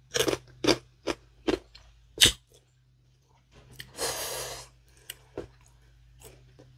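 Close-miked eating sounds of fresh young green tamarind pods: about five crisp bites and chews in the first two and a half seconds, then a short breathy rush of air about four seconds in.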